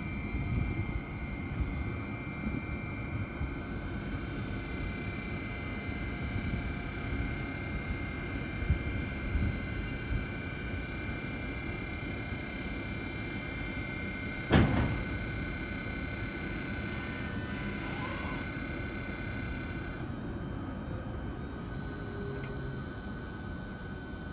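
Siemens Vectron electric locomotive's electrical equipment giving a steady whine of several high tones over a low rumble. A single sharp knock comes about halfway through, and the higher tones cut out about twenty seconds in.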